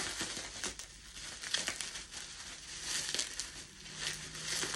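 Packaging crinkling and rustling in irregular bursts as it is handled during unwrapping.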